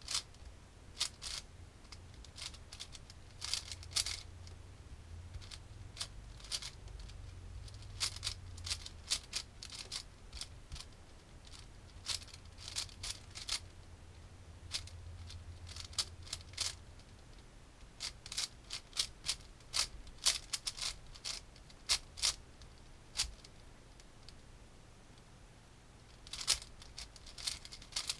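Plastic speed cube being turned quickly: its layers click and clack in irregular bursts of rapid turns, separated by short pauses.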